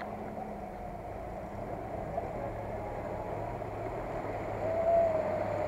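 Land Rover's engine running at low revs as it crawls through a flooded, muddy track toward the camera, growing louder as it comes closer. A thin whine comes in near the end.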